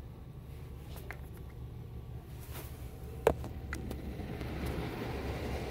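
Automatic car wash heard from inside the car: a steady low rumble, a sharp knock a little over three seconds in, then water and foam spraying against the windshield, growing louder from about four seconds in.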